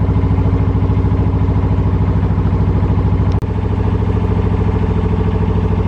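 Narrowboat engine running steadily with a fast, even chug while cruising along the canal, broken by a momentary drop a little past halfway after which its tone shifts slightly.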